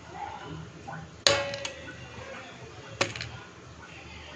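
Popcorn kernels popping: a few sharp, separate pops, the loudest just over a second in, a smaller one right after it, and another about three seconds in.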